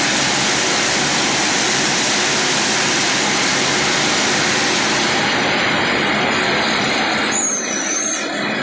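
Silage baler running, a loud, steady mechanical noise. Near the end the noise eases slightly and a brief high squeal sounds for under a second.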